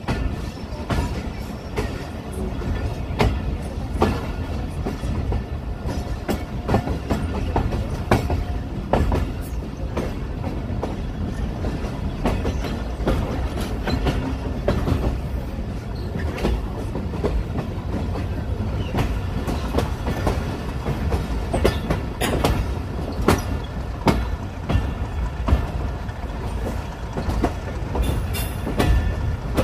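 Passenger train rolling out of a station, heard from aboard: a steady low rumble of the carriages with the wheels clacking irregularly over rail joints.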